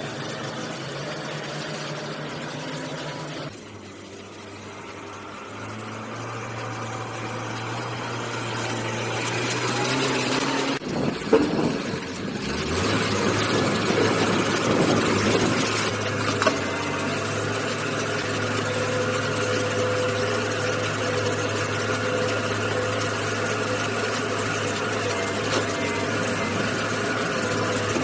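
Engine of an LPD388N-K backhoe loader running with a steady low drone and mechanical clatter, with a few loud knocks about eleven to twelve seconds in.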